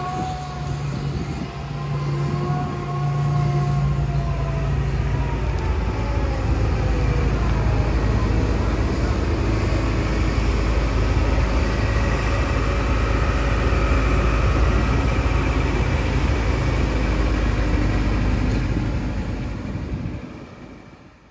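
Hitachi ZX170W-6 wheeled excavator's diesel engine running as the machine travels across the yard, getting louder about four seconds in and then holding steady. A whine falls in pitch over the first few seconds, and the sound fades out near the end.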